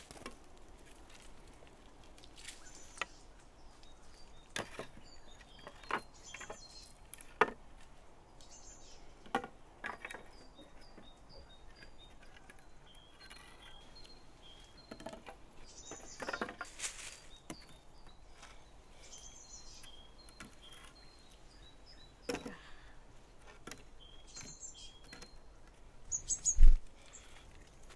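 Wooden poles knocking against each other as they are laid across a tree branch: irregular single knocks every second or few, with one heavy thump near the end. Birds chirp faintly in the background.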